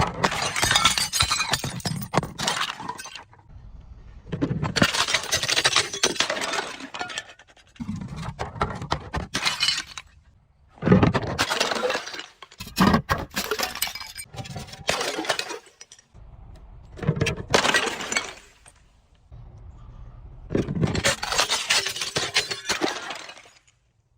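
Glass breaking and being crushed, the shards crunching and clinking, in about six bouts of a few seconds each with short pauses between.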